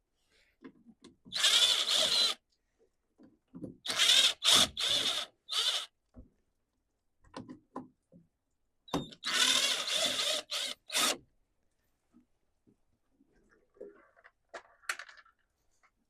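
Power drill/driver spinning screws out of the chainsaw's cover, run in short bursts: once briefly, then several quick pulses, then a longer run near the middle.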